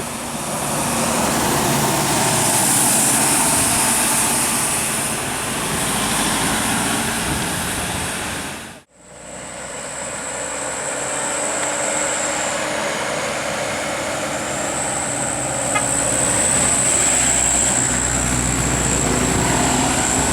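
Road traffic noise from passing vehicles: a steady rush with engine hum. It cuts out abruptly about nine seconds in and fades back up, and after that a thin, steady high whine sits over the traffic.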